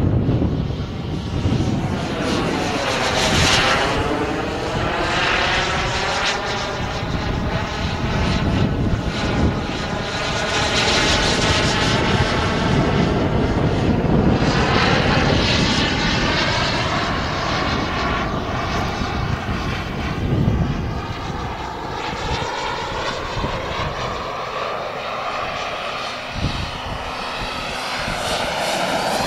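Model jet turbine engine of about 30 kg thrust on a large radio-controlled Dassault Mirage 2000, a continuous jet whine and rush. It swells and sweeps down and up in pitch as the jet passes through its manoeuvres.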